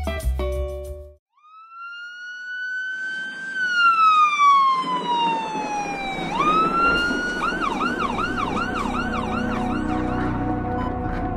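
Ambulance siren: a long wail that rises, falls slowly and rises again, then switches to a fast yelp of about two sweeps a second, which fades near the end. Under it is a steady rushing noise and a low sustained music drone.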